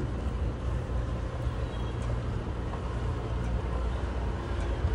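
Steady low rumble of outdoor background noise, with no distinct events standing out.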